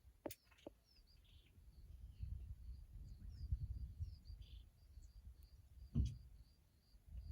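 Small birds calling with short chirps repeated all through, over a low rumble and a couple of knocks, the loudest about six seconds in.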